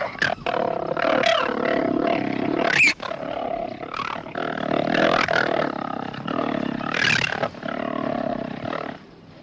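A big cat growling and snarling in a long, loud, uneven run of calls, with sharper high peaks about three and seven seconds in.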